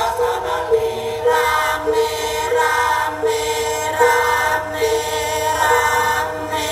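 Music with a sung vocal melody of held notes that bend from pitch to pitch, accompanying a dance.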